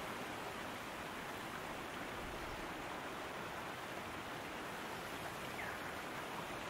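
Steady rushing of river water pouring over a weir.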